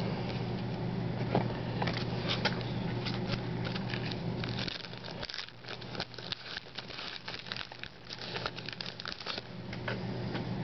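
Trading-card pack wrapper crinkling and tearing, with cards being handled: a dense run of small crackles and clicks. A low steady hum sits underneath, dropping out about halfway through and returning near the end.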